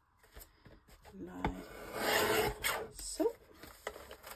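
Rasping, rubbing paper noise as pages are handled and cut, loudest about halfway through.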